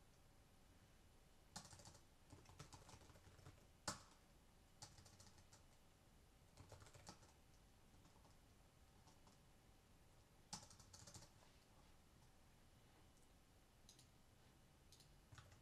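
Faint typing on a computer keyboard: several short bursts of keystrokes separated by pauses, with one sharper single key or click about four seconds in.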